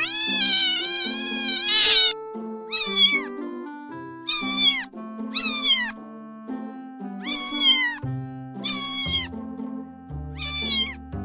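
A domestic cat meowing repeatedly: one long meow, then six shorter meows spaced about a second apart, each falling in pitch. Background music with sustained notes plays underneath.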